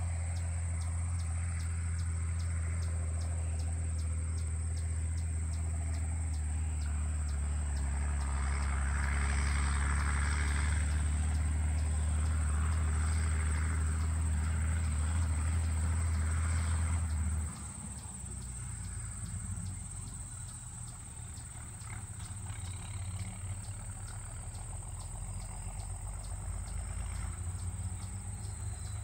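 A steady low engine hum, which cuts off suddenly a little past halfway, over continuous chirping of field crickets; a fainter low rumble and the crickets remain afterwards.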